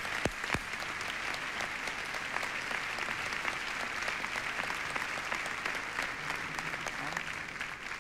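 Theatre audience applauding steadily, with a few loud, sharp claps close by in the first second; the applause begins to die down near the end.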